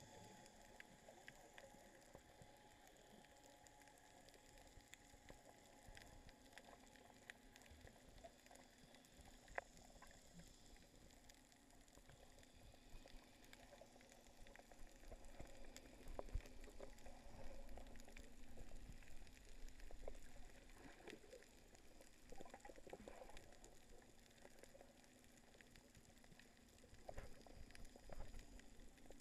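Faint underwater ambience picked up with the camera submerged: a low hiss with scattered clicks and crackles, and bubbly, sloshing water movement that grows louder around the middle and again near the end.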